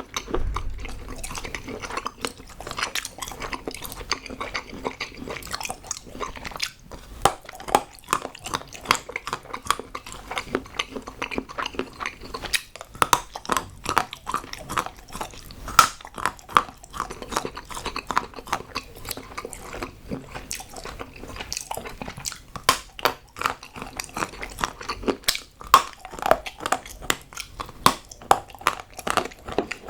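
Close-miked chewing and biting of hard chocolate: frequent irregular crunches, snaps and wet chewing sounds.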